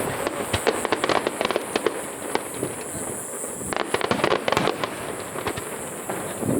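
Fireworks crackling: a dense run of quick sharp pops from an aerial Niagara waterfall firework, thickening again about four seconds in.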